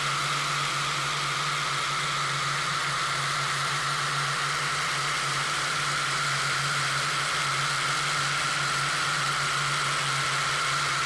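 Extreme metal recording playing: a dense, unbroken wall of distorted guitars and drums.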